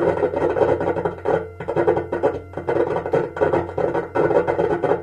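Homemade electronic imitation of a commuter train's IGBT-inverter-driven induction traction motor slowing toward a stop in asynchronous (random-modulation) mode. It makes a raspy, grainy hum that stutters and keeps dropping out irregularly.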